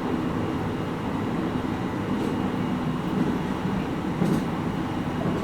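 Cabin running noise of a JR East 701 series 5500-subseries electric train at speed: a steady rumble of wheels on rail, with a couple of faint clicks.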